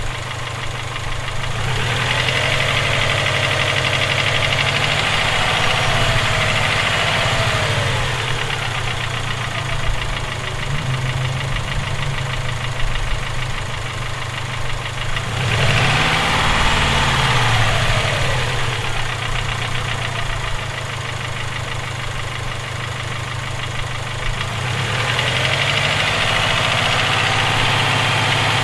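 Subaru EJ257 turbocharged 2.5-litre flat-four engine idling and being revved up and held three times, the pitch rising and falling each time. The owner suspects the engine has rod knock.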